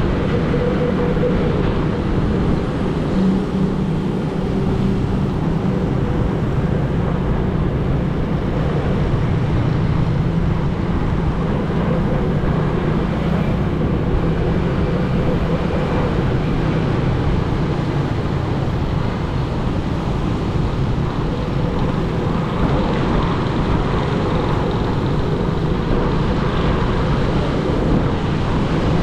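Steady vehicle and road noise with a low engine hum running underneath.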